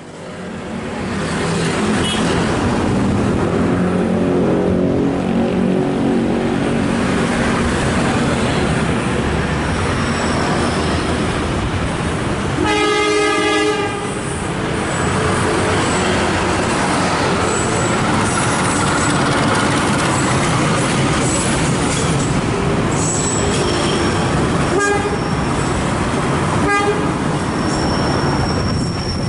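A diesel train runs close by, with its engine and the wheels on the rails making a steady loud noise throughout. One horn blast lasts about a second and a half, about halfway through, and two sharp clicks come near the end.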